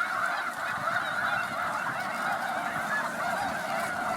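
A large flock of snow geese calling together at close range: a dense, unbroken chorus of many overlapping honks and yelps.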